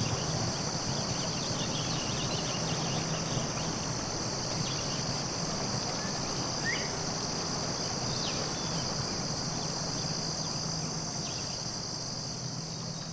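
Forest ambience dominated by a steady, high-pitched chorus of insects, with a few brief faint chirps scattered through it.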